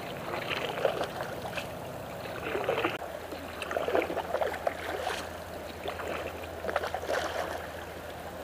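Canoe paddles dipping and pulling through river water, splashing and gurgling at irregular intervals of a second or two.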